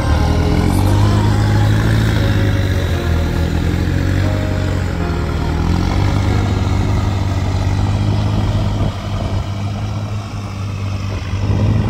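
Lifted pickup truck's engine running under load in deep soft sand, revving up and down several times as the truck is worked free with a man pushing at its front.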